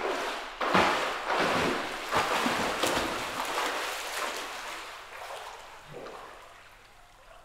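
Splashing of a swimmer's kick and freestyle arm strokes in a pool. It starts suddenly, is loudest in the first three seconds, and fades as the swimmer moves away.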